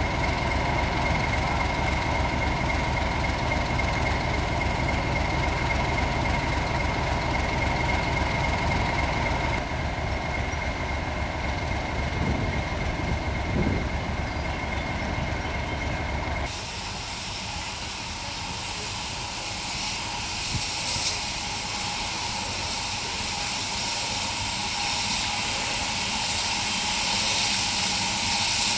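Heritage railway train: a steady running rumble with a constant whine. About 16 seconds in it changes abruptly to a quieter, steady hiss.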